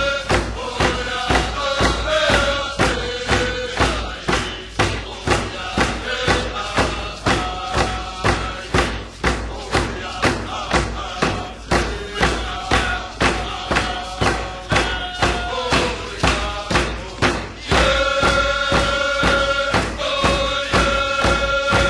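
Northwest Coast First Nations ceremonial song: a drum beaten steadily at about two strokes a second under a group of voices chanting. The held sung notes stand out at the start and come back strongly about four seconds before the end.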